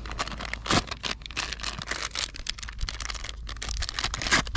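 Close handling noise of hands working on a wooden cutting board: a busy run of small clicks, rustles and crinkles, with a sharper knock about a second in and another near the end, over a steady low rumble.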